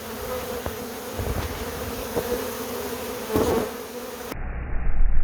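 A honeybee swarm leaving the hive, thousands of bees in the air making a loud, steady buzzing hum. About four seconds in the sound turns duller, with a low rumble underneath.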